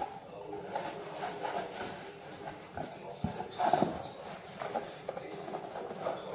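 Cotton tea towel rubbing and squeaking against a clear plastic food container as it is dried by hand, with irregular handling noise and small knocks, and a louder moment just under four seconds in.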